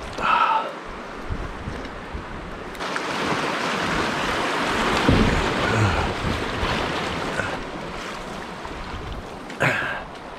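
A splash in the river near the start, then steady rushing of shallow river water around a kayak running through a riffle.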